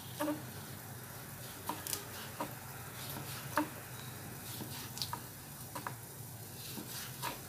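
Kitchen knife slicing a cucumber on a wooden cutting board: irregular taps of the blade against the board, about ten of them, some in quick pairs.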